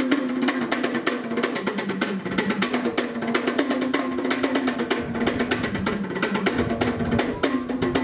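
Cook Islands drum ensemble playing a fast, dense interlocking rhythm: wooden slit drums and small skin-headed drums struck with sticks. A deeper drum layer joins about five seconds in.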